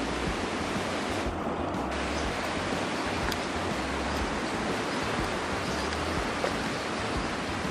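Steady rushing of the high, swollen Tietê river, an even noise without pauses, with low uneven rumbling underneath.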